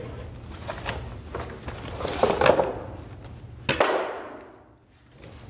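Plastic off-road recovery boards being pulled out of a nylon carry bag: fabric rustling and plastic scraping, then a sharp clack about two-thirds of the way through as a board is laid down on the concrete floor.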